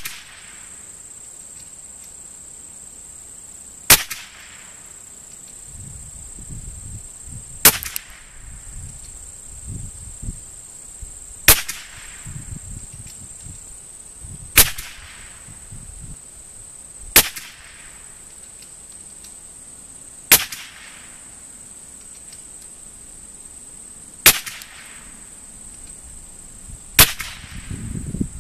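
.22 rimfire rifle firing eight single shots, one every three to four seconds, each followed by a short echo. A steady high-pitched whine runs in the background.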